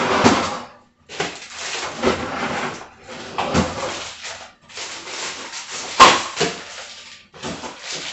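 Rustling and handling noises in short spells as fish scraps are put away in the freezer, with a sharp knock about six seconds in as a door shuts.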